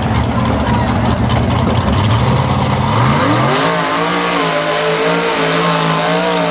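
Mud bog truck's engine running low and rough, then revving hard about three seconds in as the truck launches through the mud pit, its pitch climbing and holding high with a slight waver.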